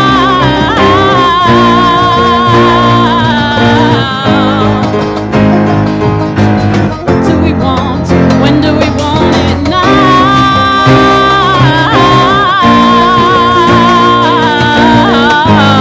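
A singer holding long, wavering notes with no clear words, over strummed acoustic guitar chords.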